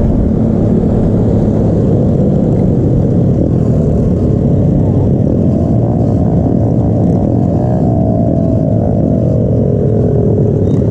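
Pitbike engines running steadily while riding. About halfway through, one engine's pitch climbs and then falls away again over several seconds as the riders slow and bunch up.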